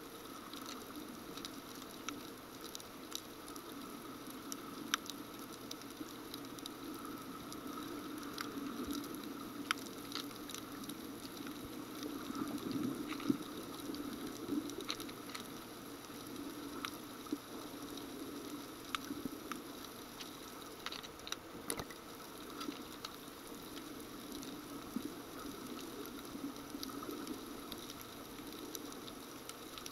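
Underwater ambience on a snorkeled reef: a steady muffled hiss with scattered sharp clicks and crackles.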